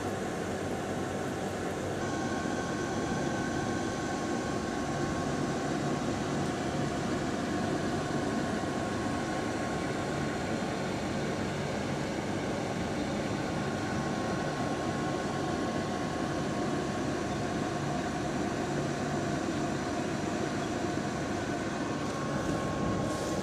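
Hot-snack vending machine running as it heats an order of fried rice: a steady mechanical hum with a thin high whine that comes in about two seconds in.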